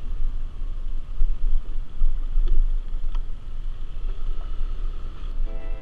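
Wind buffeting the microphone on a Yamaha Aerox scooter riding downhill, with the scooter's engine running steadily underneath. Background music comes in at the very end.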